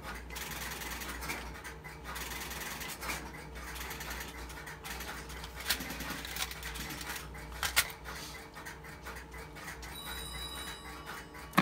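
Telephone line and handling sounds as a dialed call goes through on an Automatic Electric/GTE 120B payphone and the called phone is answered: faint noise with a few sharp clicks about six and eight seconds in, and a short high electronic tone near the end.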